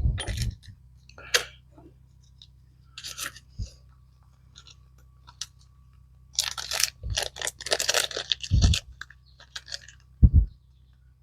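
Hands working on an SU carburettor: scattered clicks and knocks of small metal parts, with a denser stretch of scraping and rustling in the middle and a sharp knock near the end.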